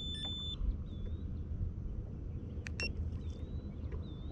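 Steady low rumble of wind on the microphone in an open boat. A short electronic beep sounds right at the start as the Garmin trolling-motor remote finishes pairing, and a sharp click comes about three seconds in.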